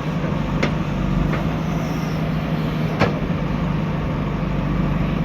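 JCB 3DX backhoe loader's diesel engine running steadily under work, with a few sharp metallic knocks, the loudest about three seconds in.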